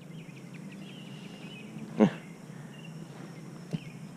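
Small birds chirping over a steady low hum, with one short, loud pitched sound about two seconds in.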